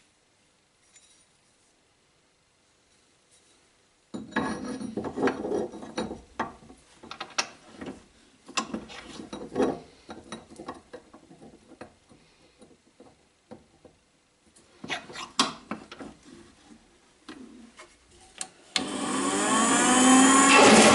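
Metal knocks and clatter as a steel plate is set into a metal-cutting band saw's vise and clamped. About two seconds before the end the band saw's motor starts, rising in pitch as it spins up, and then runs loudly.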